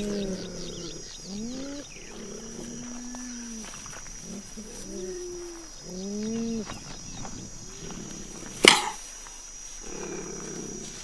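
A big cat calling: a series of short calls that rise and fall in pitch, with one longer, steadier call about two seconds in. A single sharp click about three-quarters of the way through is the loudest sound, and a faint steady high tone runs underneath.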